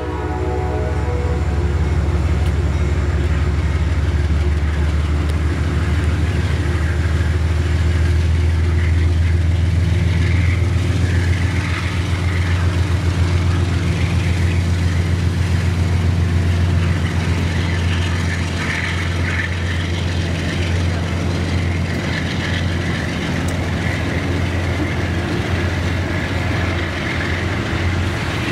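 Amtrak passenger train rolling past, its stainless-steel coaches giving a steady low rumble with wheels clattering and hissing on the rails.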